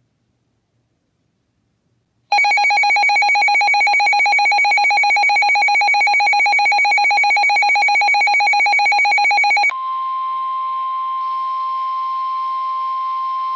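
Emergency alert tones: after about two seconds of silence, a loud electronic alert tone pulses rapidly for about seven seconds. Near the end it switches to a single steady beep, the weather radio warning alarm tone that signals an emergency warning message is about to be read.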